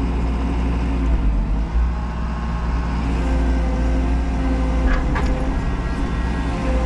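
Menzi Muck M335 spider excavator's diesel engine running steadily, heard from inside the cab, with a few brief higher-pitched sounds about five seconds in.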